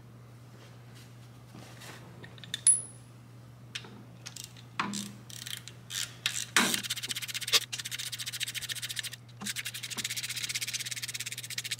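Hand ratchet clicking rapidly in two long runs over the second half as the hydraulic cam chain tensioner bolts are run down, before torquing. Earlier, scattered light metal-on-metal clinks, with one sharp ringing clink about three seconds in.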